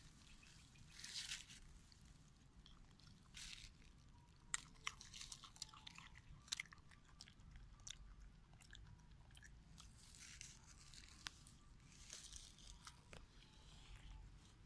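Near silence: faint scattered clicks and soft rustles, with a few sharper ticks around the middle.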